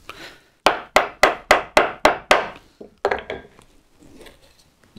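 Mallet striking a wide wood chisel with about seven light, quick taps, roughly four a second, then a few fainter taps about three seconds in. The taps are kept light to control the chisel's descent as it pares down into the wood.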